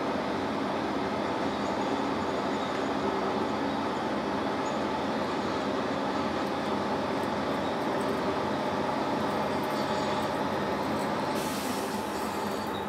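Bench metal lathe running steadily, its motor and gear train humming with several steady tones, while a tailstock-held drill bit bores into the spinning workpiece. About eleven seconds in, a hissing cutting noise joins as the drill is fed in and throws off chips.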